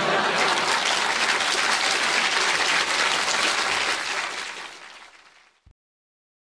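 Audience applauding, steady for about four seconds, then fading away to silence.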